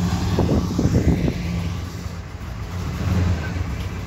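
A car engine idling, a steady low hum, with a short choppy burst of louder sound about half a second to a second and a half in.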